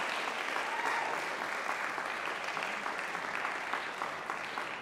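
Audience applauding, the clapping slowly tapering off.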